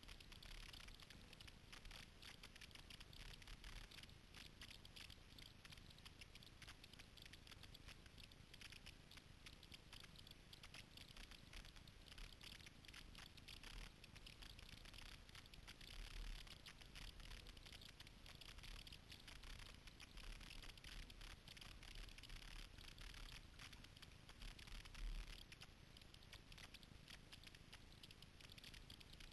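Faint pattering of water from kayak paddle strokes, drips and splashes coming off the blades, with a couple of soft low bumps.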